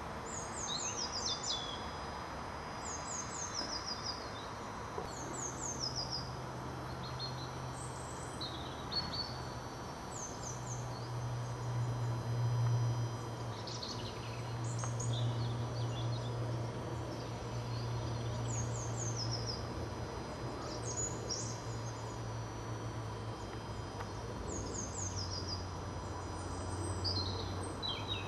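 A small songbird singing short, repeated phrases of quick falling notes every couple of seconds. Under it, the low steady drone of a tracked excavator's diesel engine at work comes in about five seconds in.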